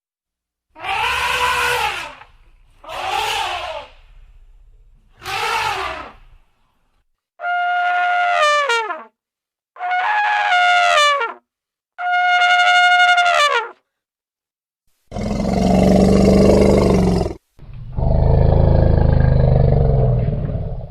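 Elephant trumpeting: six separate trumpet calls, each one to two seconds long, some bending up and down in pitch and others held on a steady brassy note, followed near the end by two longer, deeper calls.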